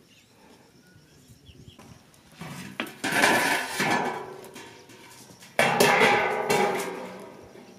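Large metal wok lid clanging and ringing twice as it is lifted off the pot and set down beside it, each clang dying away over a second or two.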